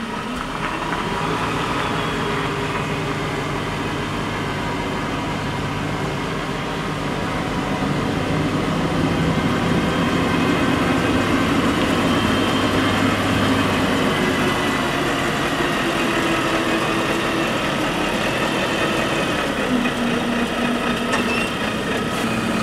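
Concrete mixer truck's diesel engine running steadily as the truck reverses slowly, with a low hum and steady mechanical noise; the engine note changes a little near the end.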